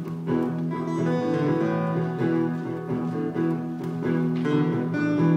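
Acoustic guitar playing the instrumental introduction to a folk song, with regularly picked and strummed chords.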